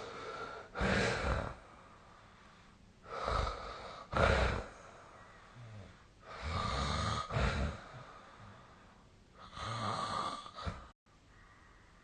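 A sleeping person snoring: four rasping snoring breaths about three seconds apart, each in two parts. The sound cuts off suddenly about eleven seconds in.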